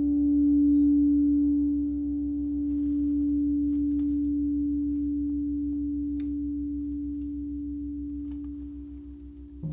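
Crystal singing bowl ringing on one pure, steady tone with a slow low beat beneath it, slowly fading away. A few faint clicks and knocks from mallets being handled, and right at the end a gong is struck softly.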